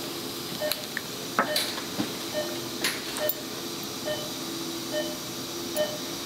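Operating-room patient monitor giving short pulse beeps about once every 0.8 seconds over a steady hum and hiss. A few sharp metallic clicks of surgical instruments come between about one and three seconds in.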